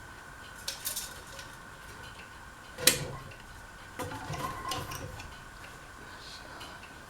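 Harbor Breeze Pulsar ceiling fan running with a steady hum, with light clinks and clicks: a few faint ones about a second in, one sharp click just before three seconds, and a cluster around four to five seconds.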